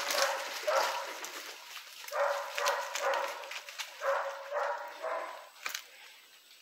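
Hunting dogs barking repeatedly, a string of barks in bunches that fade out after about five seconds, with a few sharp snaps and rustles close by.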